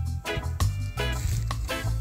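Background music with a steady beat: a bass line under short chord stabs that come about every third of a second.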